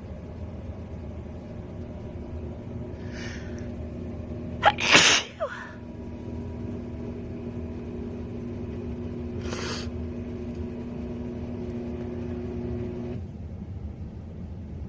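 A woman sneezes once, sharply and loudly, about five seconds in, from a winter head cold; fainter breaths come just before it and again a few seconds later. A low steady hum in the background stops near the end.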